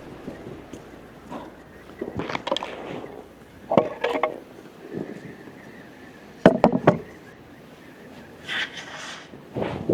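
Scattered knocks and clatters of objects being handled and set down, several separate hits a second or two apart, the loudest about two-thirds of the way in.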